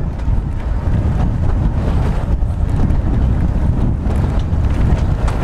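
Wind buffeting the microphone, a steady heavy rumble, over the running noise of a Snaefell Mountain Railway electric tramcar moving along its track.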